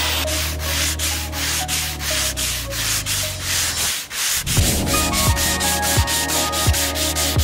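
Sandpaper on a hand sanding block rubbed back and forth over hardwood in quick, even strokes, with a brief gap about four seconds in.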